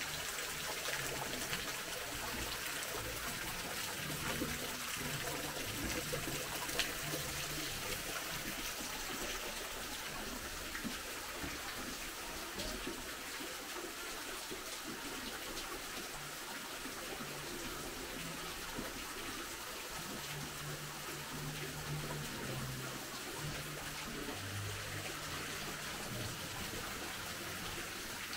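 Water running steadily, a continuous splashing trickle.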